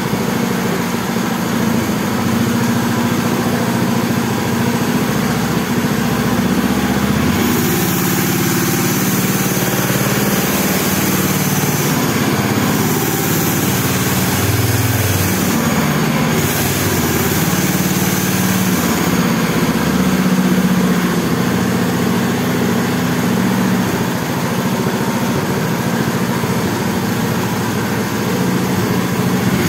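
Small go-kart engine running steadily while the kart stands still, its engine speed changing a few times in the middle.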